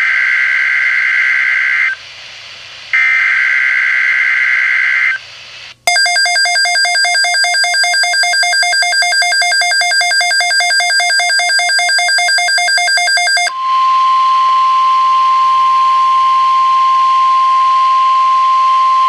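Emergency Alert System tones: two bursts of screechy SAME header data, each about two seconds long with a one-second gap between them, then about seven and a half seconds of a rapidly pulsing, buzzy alert tone, then a steady, single-pitched 1050 Hz weather-radio warning tone.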